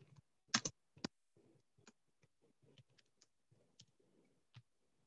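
Faint, irregular clicks and taps of computer keys, a few sharper ones in the first second and lighter scattered ones after.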